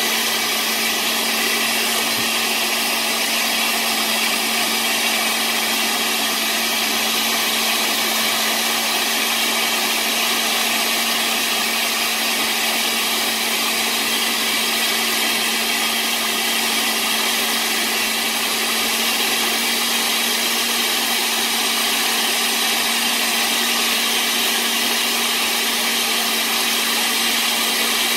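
Countertop kitchen blender running steadily at speed, a motor hum under a dense whir, blending a thick mole sauce of soaked ancho chiles, tomatoes and plantain with water.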